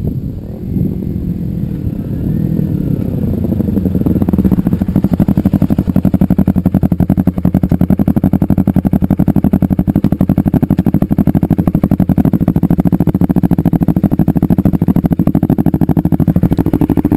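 Kawasaki Ninja 250R's parallel-twin engine running through its exhaust: the pitch rises and falls briefly at first, then from about four seconds in it settles into a steady, loud, evenly pulsing run.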